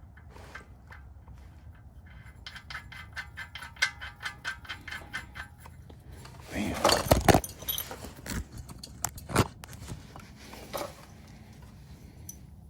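Metal-on-metal clicking and scraping as a spin-on oil filter is screwed by hand onto the filter mount of an aftermarket oil pan, with a quick run of even ticks for a few seconds and a few separate clicks later.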